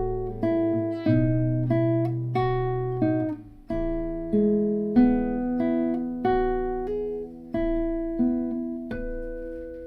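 Solo guitar playing a slow picked melody in E major, single notes and pairs each left to ring. The notes come about one or two a second, and a last note is held ringing near the end.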